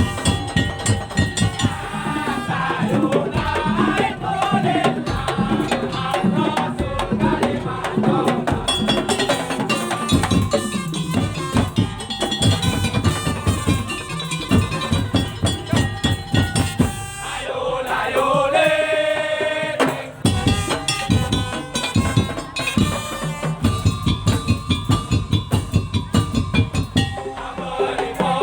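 Madurese tong-tong (daul) percussion ensemble playing: dense, fast drum and slit-drum rhythm under a pitched melody. About two thirds of the way through, a long high note is held and bent.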